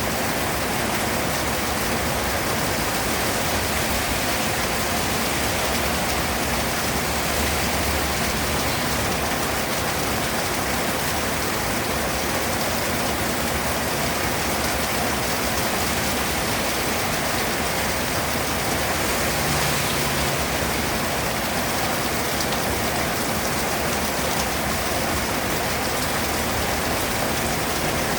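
Steady rain falling and pattering on surfaces, a dense even hiss with no pauses.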